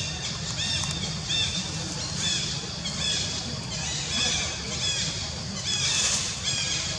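Short, high-pitched chirping animal calls repeated several times a second, over a steady low rumble.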